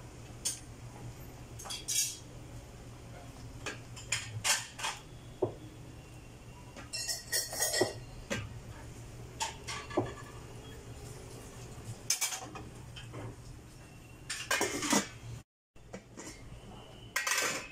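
Wooden spoon stirring soup in a stainless steel pot, knocking and scraping against the pot with scattered clinks, over a steady low hum. Near the end a stainless steel lid clanks against the pot.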